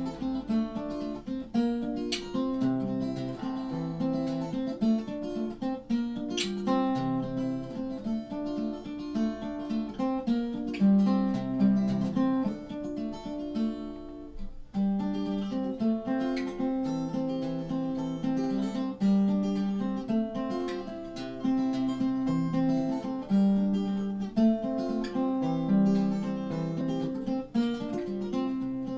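Background music played on acoustic guitar, strummed and picked.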